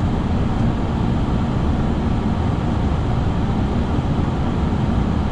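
Steady rush of airflow and engine noise on the flight deck of an Airbus A340 on final approach, heard as an even, low-heavy noise with no breaks.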